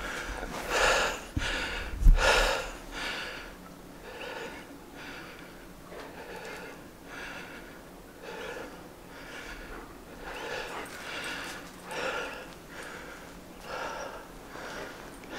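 A person breathing hard, steady breaths in and out about every half second to second. A single low thump about two seconds in.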